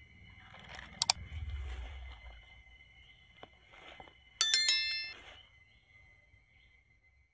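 Two sharp clicks about a second in, then a single bright, bell-like ding about four and a half seconds in that rings and dies away within a second, over faint steady high tones.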